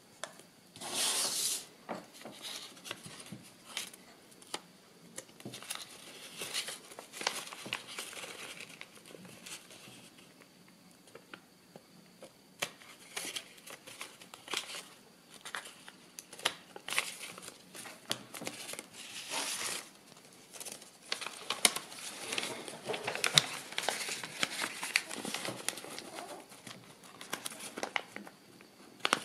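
Kraft paper rustling and crinkling as folded accordion sections are handled and creased by hand, with irregular small clicks and taps. The loudest rustle comes about a second in.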